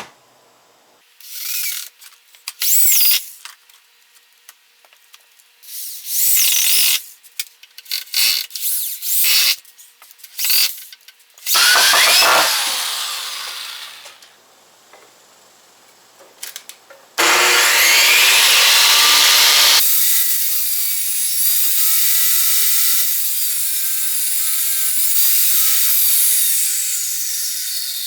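Power tools working wood: a string of short bursts that start and stop, one spinning down as it ends, then about ten seconds of steady running near the end.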